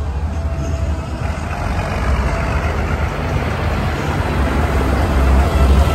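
Large farm tractor's diesel engine running as it drives past, with a deep rumble that grows louder as it nears.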